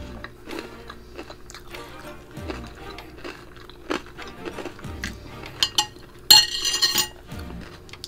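Metal spoon scraping and clinking against a small bowl of dipping sauce, with one louder ringing clink about six seconds in, and crunchy chewing of a crispy vegetable fritter.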